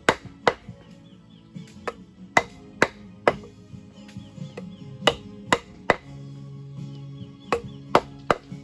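Short wooden baton hammering the back of a long knife blade to split a large cobia lengthwise. The strikes are sharp chops, about a dozen in all, mostly in runs of two or three about half a second apart.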